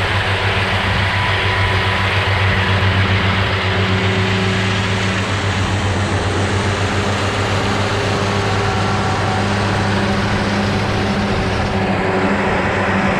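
Diesel farm tractor engine running steadily, its low drone mixed with a noisy wash of working machinery.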